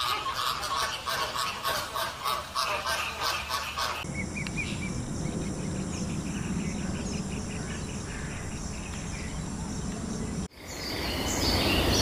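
Domestic geese honking in a rapid, even series of calls for the first four seconds. Then a quieter stretch of low outdoor noise with faint rapid ticking high up, and near the end a faint high bird call over hiss.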